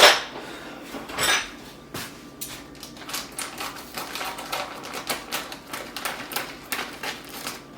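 A plastic chip bag being handled and opened with a utensil: a string of irregular crackles and clicks, with louder knocks at the start and about a second in.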